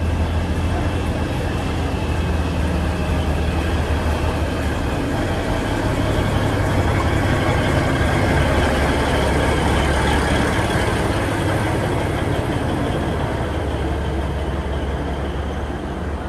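A train running steadily, with a deep constant hum under an even rushing noise that swells slightly in the middle.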